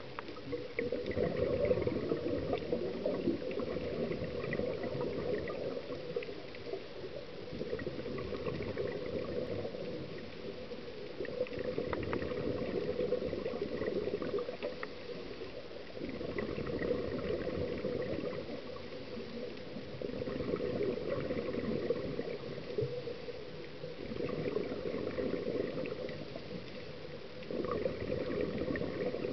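Scuba regulator exhalations heard underwater: bubbling gurgles in a burst every four seconds or so, with quieter gaps between breaths.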